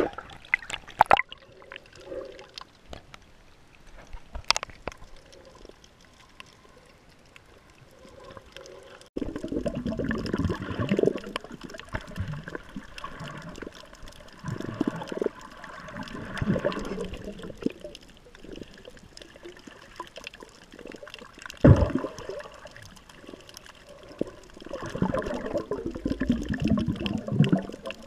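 Water sloshing and gurgling heard through an underwater camera: quiet with scattered clicks at first, then louder rushing surges from about a third of the way in, with one sharp knock about three quarters of the way through.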